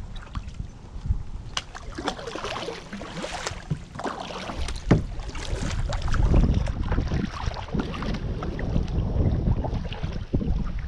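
Wind buffeting the microphone in gusts, with many scattered sharp clicks and knocks over it.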